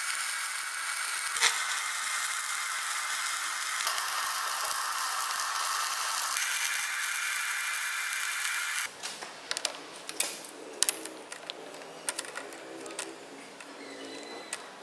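Stick (arc) welding: the electrode's arc hisses steadily as a steel bracket is welded to a steel plate, shifting slightly in tone a few times and stopping about nine seconds in. Then come scattered sharp metal clicks and knocks as a steel round bar is handled in a lathe chuck.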